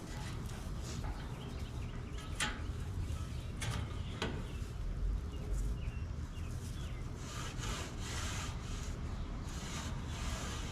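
Scraping and rubbing noises with a few sharp knocks, from parts being handled while a vehicle bed is taken apart, over a steady low rumble. The knocks come in the first half and two longer scrapes near the end.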